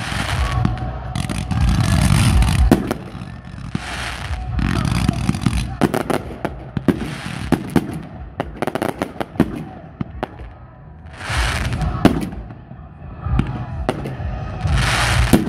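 Aerial fireworks going off: a series of shell explosions, each trailing into a long low rumble. A quick run of sharp crackling pops fills the middle, and one more big burst comes near the end.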